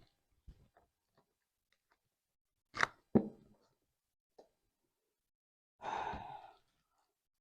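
A cookware box and its packaging being handled while it is unpacked: two sharp knocks close together about three seconds in, then a short rustle or scrape about six seconds in.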